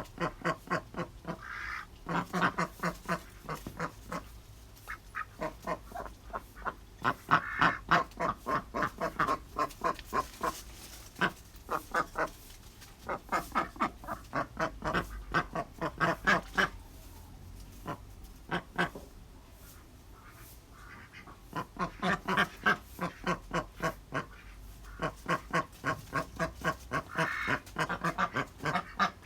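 Ducks quacking in long runs of rapid calls, several a second, with short pauses between the runs.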